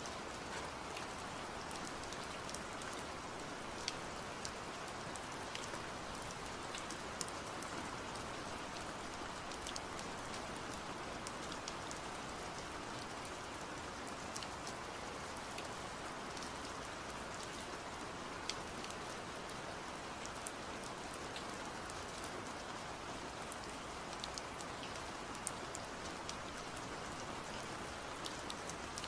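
Steady rain-like hiss with scattered small, sharp ticks.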